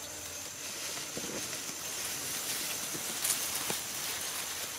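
Rice stalks and leaves rustling as they brush against the camera pushing through the paddy, with a few faint knocks among the steady rustling.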